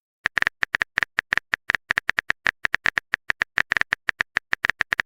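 A fast, uneven run of short clicking blips, about ten a second, each with the same high pitch, starting about a quarter second in.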